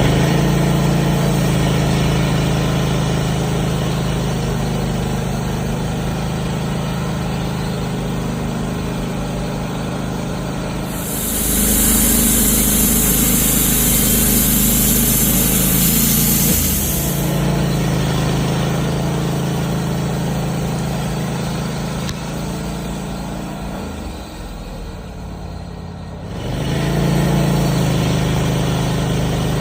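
Wood-Mizer portable band sawmill running steadily as it saws a red oak log, its engine's drone present throughout. A loud hiss comes in about a third of the way through and lasts several seconds. Near the end the engine eases down briefly, then picks up again.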